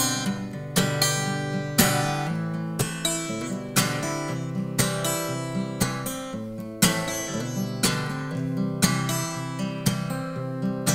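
Solo Martin acoustic guitar strumming chords in an instrumental passage, with a sharp accented strum about once a second.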